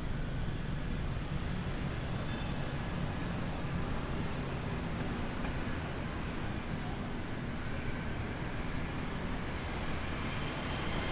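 Steady city street traffic noise: a low, even rumble of cars and motorbikes on the road.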